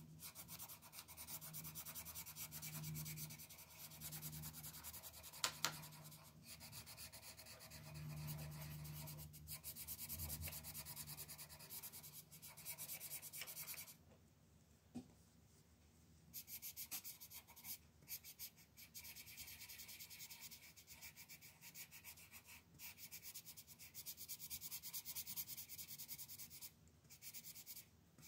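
Coloured pencil shading on paper in a spiral-bound colouring book: rapid back-and-forth scratchy strokes that pause for about two seconds around the middle and then resume. One sharp click about five and a half seconds in.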